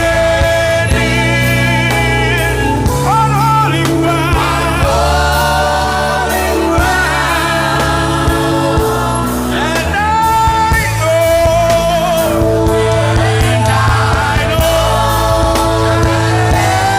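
Gospel worship song: voices singing long, wavering held notes over a band accompaniment with a steady low bass.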